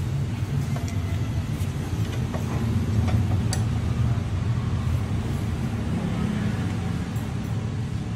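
Steady low rumble of a running vehicle engine, with a few light metallic clicks as an L-shaped socket wrench works the scooter's front axle nut.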